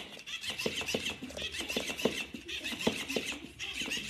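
Electric flopping-fish cat toy in motion: its motor buzzes in spurts of about a second, and its tail slaps the surface in irregular knocks, a few a second.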